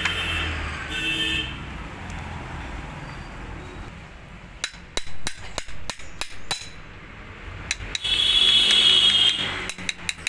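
A hammer tapping the camshaft and its bearing home in a Bajaj Discover 125's aluminium cylinder head. There is a cluster of sharp metal taps about halfway through, then a quick run of light taps near the end. Around eight seconds in, a louder hiss with a high tone lasts about a second and a half.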